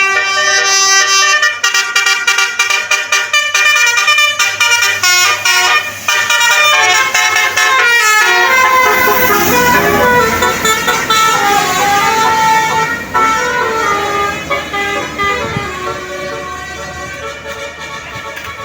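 Bus musical air horn of the Indonesian 'telolet' (basuri voice-module) kind playing a melody, first as a quick run of short notes. From about eight seconds in it plays longer notes that slide in pitch, with more low rumble underneath.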